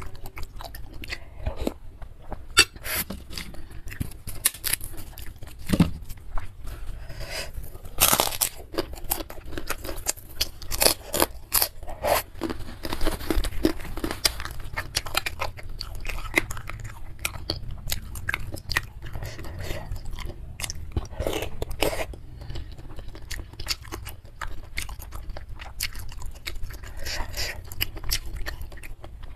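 Close-miked chewing of bakso urat (beef tendon meatballs) and noodles: a steady run of wet chews with frequent crunchy bites and crackles.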